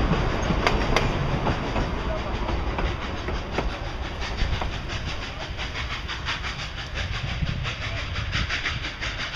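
Cumbres & Toltec narrow-gauge train rolling along the rails, its wheels clicking over the rail joints in a regular clickety-clack over a steady rumble that slowly fades.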